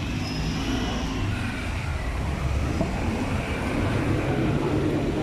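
Street traffic noise: vehicle engines, among them three-wheelers, running with a steady low rumble.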